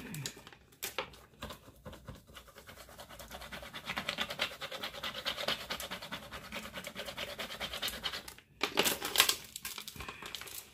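Clear plastic transfer tape crinkling and crackling as it is slowly peeled back off vinyl decals on a wood board, with scratchy rubbing of the sheet against the board. It is busiest in the middle, with a few louder crackles near the end.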